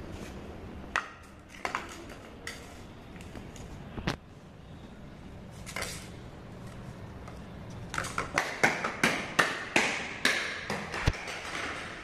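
Small Mivi Play Bluetooth speaker tumbling down stone stairs, knocking against the steps. A few scattered knocks come first, then a quick run of clattering knocks near the end as it falls the rest of the way.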